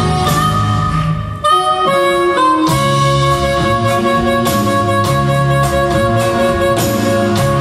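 Live band music: a harmonica carries the lead melody in long held notes over drum kit, bass, electric guitar and keyboards. The melody moves to new notes after a brief dip about a second and a half in.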